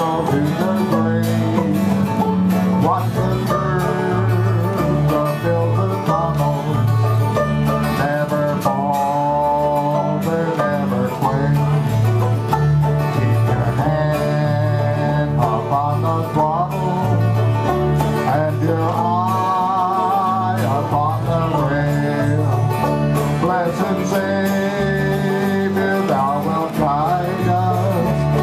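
Old-time string band playing a country tune together: acoustic guitar strumming, banjo picking and an electric bass guitar keeping a steady beat, with a wavering melody line on top.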